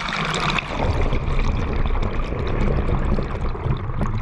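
Water rushing and pouring through bathroom plumbing, a steady gush that is strongest at the very start.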